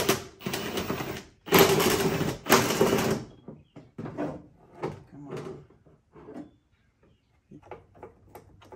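Cordless drill/driver running in two bursts over the first three seconds, with a steady whine, backing screws out of a plastic air-intake box lid. After that come scattered clicks and knocks of the plastic lid and clips being handled and pried loose.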